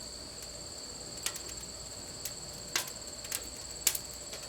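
Crickets trilling steadily, with several sharp clicks scattered through the second half.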